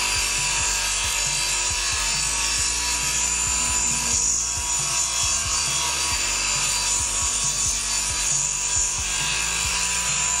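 Combination mitre saw running with its blade raised through the upper table, cutting a shallow rebate along a wooden batten as it is fed past: a steady high whine with the hiss of the cut. Taking this wood off first eases the later pass with the router.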